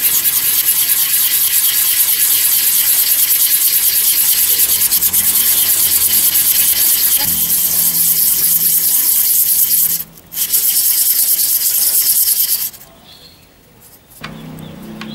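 A metal sewing-machine thread-tension disc rubbed by hand in circles on fine 360-grit sandpaper for metal: a loud, steady, fast scratchy rasp. It breaks off briefly about ten seconds in and stops a couple of seconds before the end. The sanding is flattening the disc's uneven face, which was gripping the thread unevenly and causing loose, unstable stitches.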